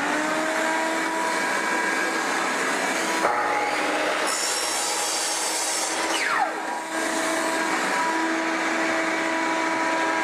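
Electric miter saw running at full speed and cutting a 7 mm laminate floor plank in half. The motor's steady whine holds throughout, and the sound turns harsher for a few seconds in the middle as the blade goes through the board.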